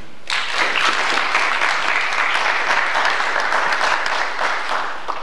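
Audience applauding: many hands clapping, starting about a third of a second in and dying down near the end.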